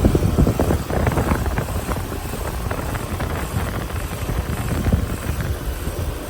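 2016 Keeprite 4-ton central air-conditioner condenser running, its compressor and fan giving a steady rumble with irregular knocks. The unit is shaking a lot and rattles.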